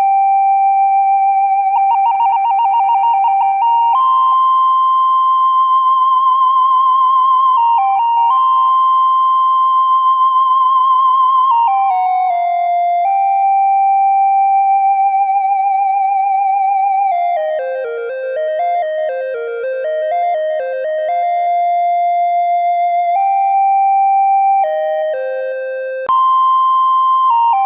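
Background music: a simple keyboard-like melody of long held notes, some with a wavering vibrato, and a quicker run of short notes past the middle.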